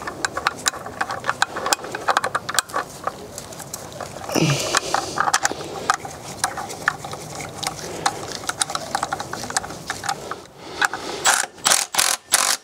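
Irregular metallic clicks and clinks of a new flywheel and its bolts being fitted by hand to a BMW N47 diesel's crankshaft, with a quicker run of louder sharp clicks near the end.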